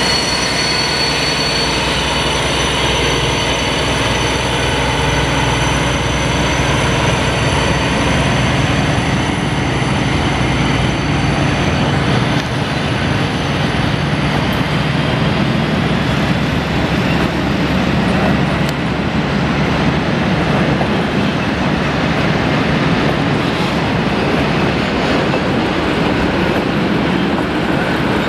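Class 225 diesel locomotive pulling away with a train of loaded car-carrier wagons: the engine's drone with a high whine that fades over the first dozen seconds, then the steady rumble and clatter of the wagons' wheels rolling past on the rails.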